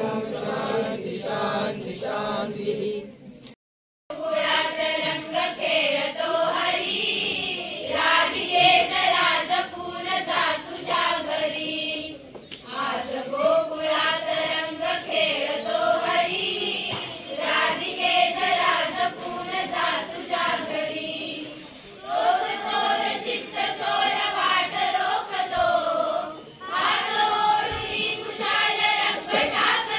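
A group of young voices singing a devotional song together. The sound cuts out briefly about three and a half seconds in, then the singing resumes.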